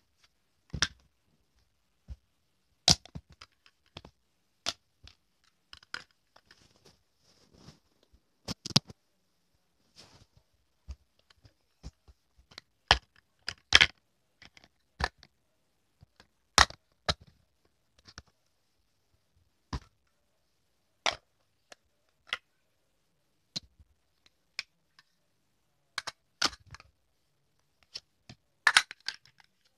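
Plastic toy pots, lids and plates clicking and knocking together as they are handled, in irregular single taps with a quick flurry near the end.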